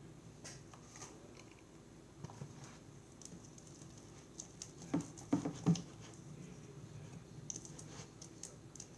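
Soft scattered clicks and taps of a utensil working a sticky glue slime mixture in a bowl as baking soda is added, with a few louder knocks about five seconds in.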